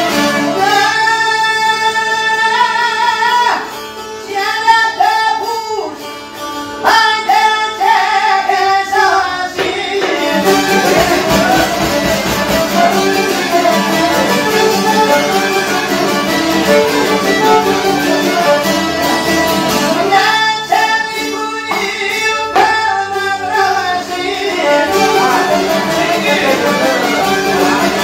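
Albanian folk tune played live on violin, piano accordion and long-necked plucked lutes. A bending melody line stands out in the first third and again about two-thirds through, over steady accompaniment.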